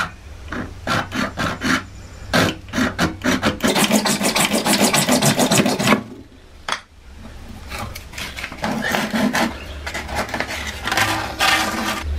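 Irwin hand saw cutting through a white PVC water pipe with back-and-forth strokes. The strokes quicken into rapid sawing in the middle, stop briefly about six seconds in, then start again until the pipe is cut through.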